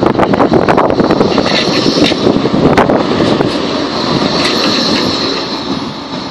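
Blackpool Flexity 2 tram running past at close range on street track, its wheels and motors rumbling, with a few sharp clicks and a high whine as it goes by, fading near the end. Wind buffets the microphone throughout.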